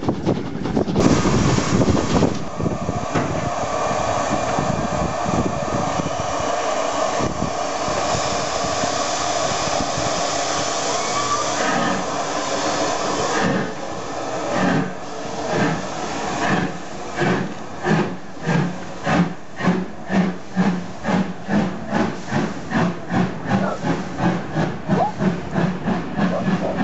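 Steam locomotive at a station: a steady hiss of steam, then from about halfway through it pulls away, its exhaust chuffing in beats that quicken as the train gathers speed.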